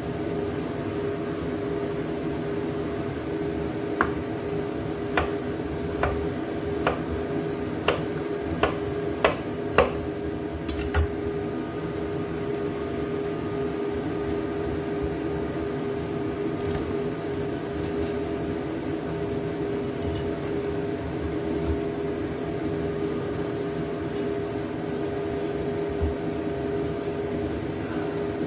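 A chef's knife knocks sharply on a wooden cutting board as it chops through a peeled vegetable: a run of about nine knocks between four and eleven seconds in, then a few scattered ones. Under it runs a steady mechanical hum.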